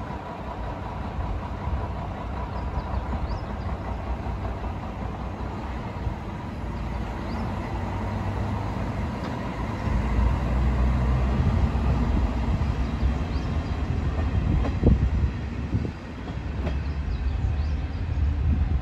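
JR Shikoku KiHa 32 diesel railcar pulling away from the station, its engine and wheels rumbling, louder from about halfway through. There is a single sharp knock about three quarters of the way through.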